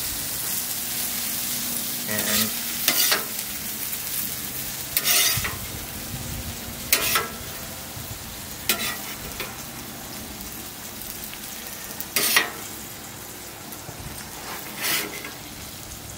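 Onions and pickled cactus sizzling on a gas flat-top griddle, the sizzle easing off after the first few seconds. A metal spatula scrapes and clacks on the griddle plate about seven times at uneven intervals.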